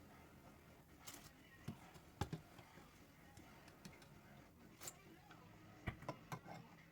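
Faint background with a handful of short, light clicks and knocks at irregular intervals, the sharpest about two seconds in and again near the end.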